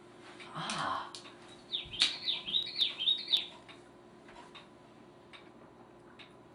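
Plastic bottle of carbonated soda being opened and handled: a short hiss, then a quick run of about six high, squeaky chirps.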